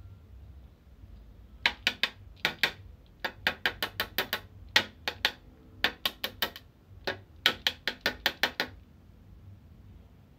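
A carrot being grated on a small handheld grater: quick runs of rasping strokes with short pauses between them, starting about a second and a half in and stopping near the end.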